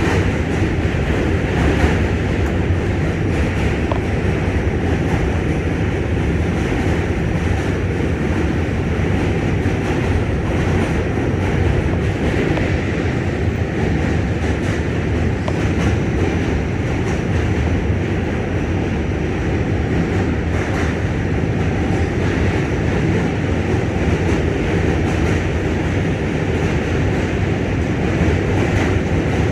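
R46 subway car running along the track, heard from inside the car: a steady rumble of wheels on rails with no break.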